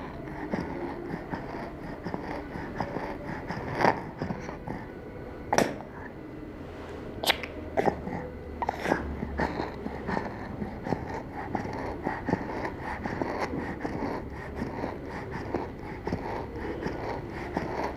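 A sick young child breathing, with a wheeze on each breath out: the sign of wheeze rather than stridor, which is a harsh sound on breathing in. A few short sharp sounds stand out at about 4, 5.5, 7.5 and 9 seconds.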